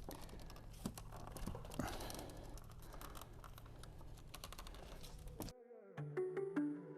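Faint clicking and tapping of plastic grille parts being handled and fitted together, which cuts off abruptly about five and a half seconds in. Quiet electronic music tones begin near the end.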